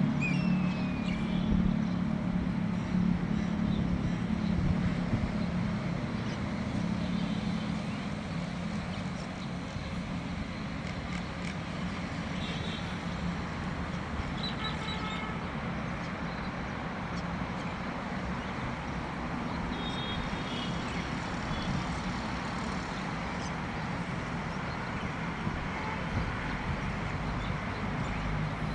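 Steady outdoor background noise with a low, engine-like hum during the first six seconds, and a few faint, short, high bird chirps scattered through the middle.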